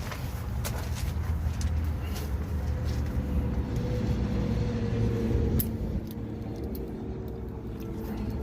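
A motor vehicle's engine rumbling nearby, getting louder and then dropping off suddenly about five and a half seconds in, with a few light clicks near the start.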